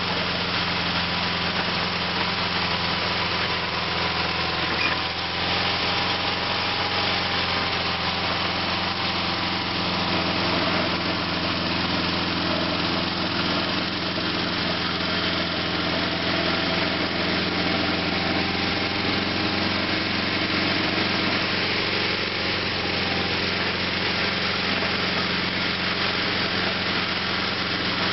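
Sears SS/16 garden tractor's Onan twin-cylinder engine running steadily as the tractor pushes and levels dirt with a front dozer blade. A brief click about five seconds in.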